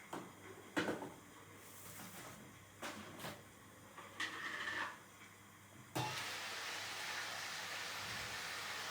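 A few short knocks and clicks of things being handled, then a steady rushing hiss that starts suddenly about six seconds in.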